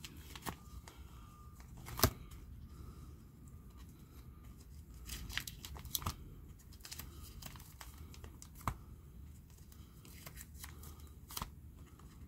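Plastic disc sleeves in a zippered CD case being turned and handled, crinkling and rustling, with scattered clicks and taps, the loudest about two seconds in.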